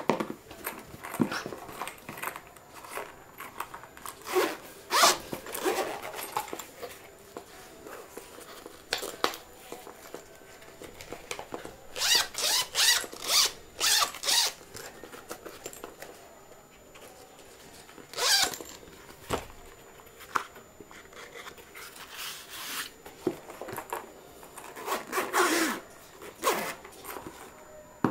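Zipper of a molded pencil case being pulled open and shut in several short runs, with handling rustles and light taps on the case between them.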